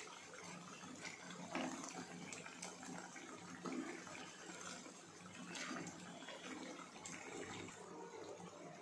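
Hot oil sizzling steadily around round batter pancakes deep-frying in a pan, with scattered sharp crackles and pops.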